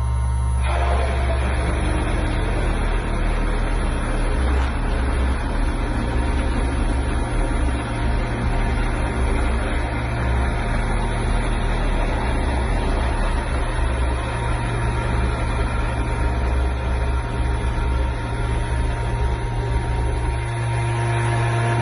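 Parallel kinematic machining robot running: a steady machine noise over a low hum, which comes on about half a second in.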